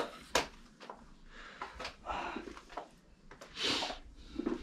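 A floor being swept with a broom: a few short swishing strokes and light knocks, the loudest swish a little before the end.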